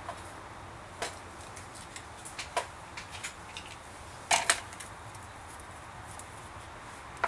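Quiet room tone with a few short, sharp clicks and taps scattered through it, the loudest a close pair about four and a half seconds in.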